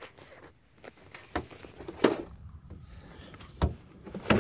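A few scattered knocks and clicks from gear and hands moving against a small boat while a fishing rod is handled, over a quiet background.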